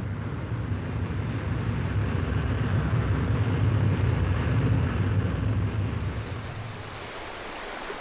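Steady rushing ambience of ocean surf and wind, under a deep low rumble that fades out about six to seven seconds in.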